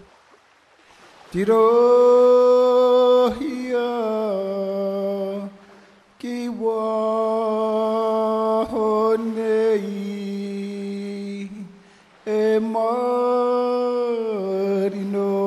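Background music: a voice chanting in long held notes, in three slow phrases separated by short breaths, each phrase stepping down in pitch.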